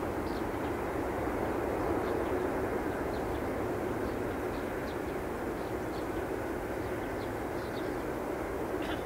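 Airbus A380-841's four Rolls-Royce Trent 970 jet engines, heard from a distance as a steady rumble while the airliner rolls out down the runway after touchdown.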